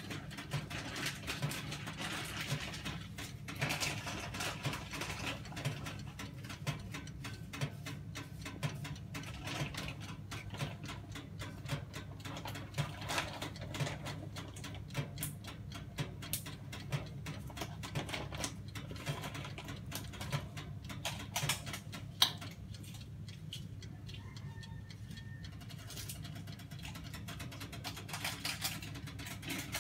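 Electric oven running during baking: a steady low hum with a dense patter of small ticks and crackles, and one sharper click about two-thirds of the way through.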